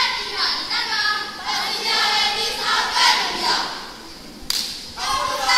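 A school choral speaking team of boys and girls voicing their lines together in unison, in phrases. About four seconds in the voices drop briefly, a single sharp hit follows, and then the voices come back in.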